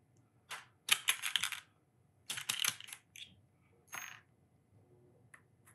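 Small diecast metal kit parts clinking and rattling as they are picked out of a plastic parts box and handled, in several short clusters of sharp clicks.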